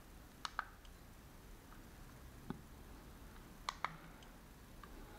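Small plastic push-buttons on a dashcam being pressed to step through its menu: a few short sharp clicks, a pair about half a second in, one near the middle and another pair near four seconds in.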